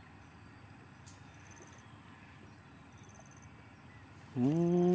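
Quiet open-air background with faint short high trills repeating about every two seconds. About four seconds in, a man's voice breaks in with one loud, drawn-out call.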